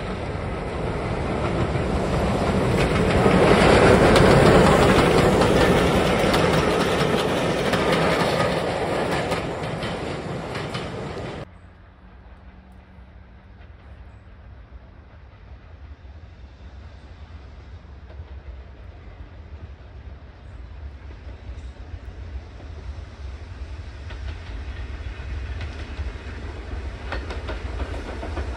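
A steam-hauled passenger train passing close by, loud and rumbling, then fading away. After a cut, a steam locomotive running tender-first with its coaches approaches from a distance, and its low rumble and wheel clatter slowly grow louder.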